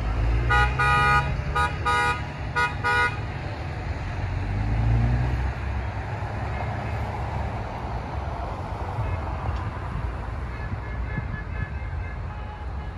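Vehicle horns honking in a quick string of about six short blasts over the steady noise of passing pickup trucks and cars. About four to five seconds in, a passing engine swells and fades, and a fainter horn sounds again near the end.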